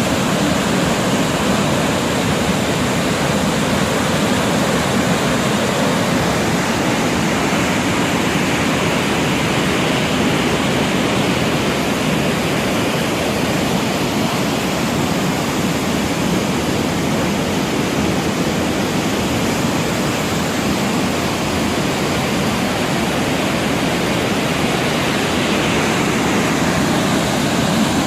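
Waterfall of Haew Narok: a steady, loud rush of falling water.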